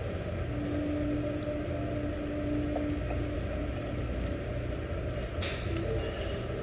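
Steady low hum and hiss of a tabletop yakiniku grill with beef cooking on it, in restaurant room noise, with a single sharp click about five and a half seconds in.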